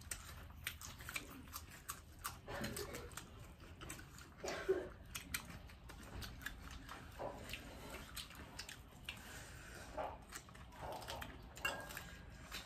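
People chewing and crunching singju, a Manipuri salad of raw leafy greens and fried pieces, in a run of irregular crisp crunches and clicks, with fingers picking food from a steel plate.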